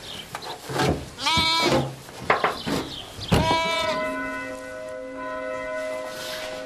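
Sheep bleating: two wavering calls, about a second in and again about three seconds in, with a few short knocks. From about four seconds in, a steady ringing tone of several pitches holds on and slowly fades.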